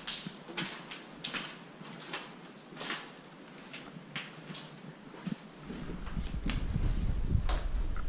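Footsteps crunching over debris and broken building material on a littered floor, with irregular sharp clicks and crunches. About six seconds in, gusty wind starts rumbling on the microphone and grows louder.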